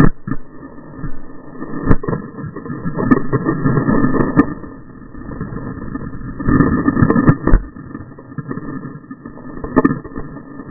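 Water rushing and churning over a windsurfer's action camera as he wipes out into the whitewater, broken by several sharp knocks and splashes.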